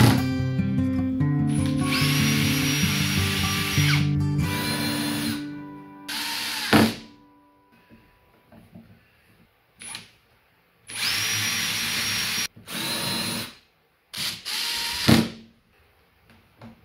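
Power drill running in about five short bursts of one to three seconds, each spinning up as it starts and then stopping, as holes are drilled or screws driven into wood. Background music plays under the first few seconds and fades out.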